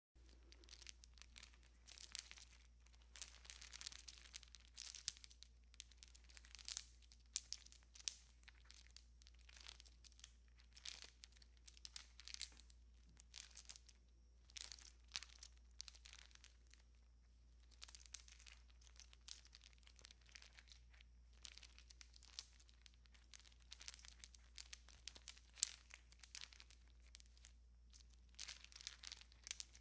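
A string of Christmas tree lights being strung on a tree: the wire and bulbs rustle and crinkle in irregular bursts, with now and then a light click, one sharper click near the end.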